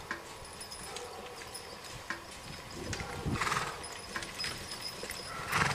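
Team of two draft horses walking and pulling a wagon, scattered hoof knocks on leaf-covered ground. Two brief louder noises stand out, about three and a half seconds in and near the end.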